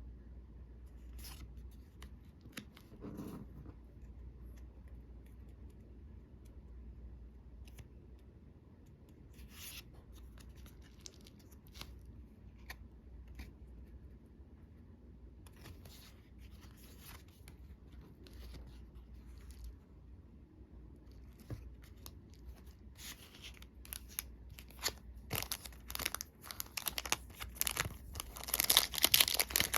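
Magic: The Gathering booster pack and cards being handled: scattered soft clicks and rustles, building near the end into dense, louder crinkling as the foil pack wrapper is torn open.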